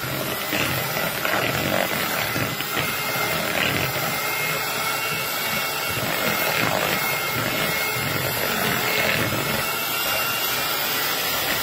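Bear 5-speed electric hand mixer running steadily at low speed, its steel beaters churning through mashed avocado in a bowl.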